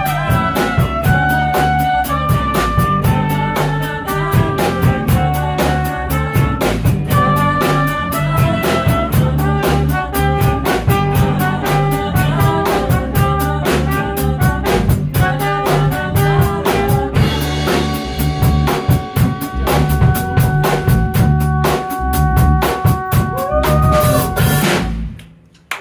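Live band with drum kit, trumpet and electric guitar playing an instrumental passage, with a steady fast drum beat under held trumpet notes. The music dies away and stops just before the end.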